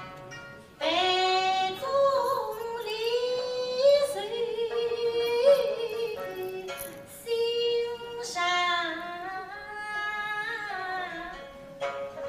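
A woman singing a Suzhou pingtan (tanci) melody in long, wavering held notes, to plucked string accompaniment from pipa and sanxian. The singing begins about a second in, pauses briefly around the middle, then goes on.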